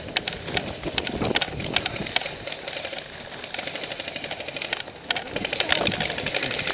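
Airsoft electric guns firing: scattered sharp single shots, then from about halfway a long rapid full-auto rattle of gearbox cycling and shots.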